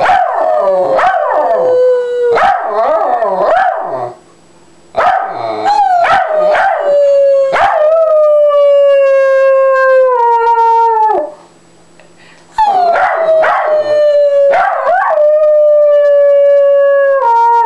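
A dog howling in long drawn-out notes that slide slowly down in pitch, joined by a woman howling along with it in the first few seconds. Two of the howls are especially long, each lasting several seconds, with brief pauses between the bouts.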